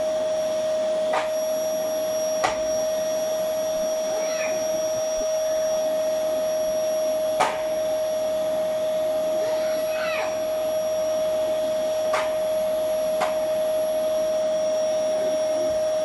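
Canister vacuum cleaner running with a steady whining hum, broken by a few sharp knocks.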